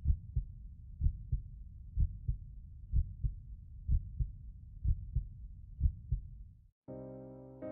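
A heartbeat sound effect: low paired thumps, lub-dub, about once a second over a low hum, stopping abruptly near the end. Electric piano music starts right after.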